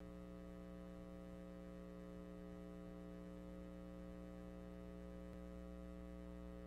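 Steady low electrical hum with a buzzy set of overtones, unchanging in pitch and level.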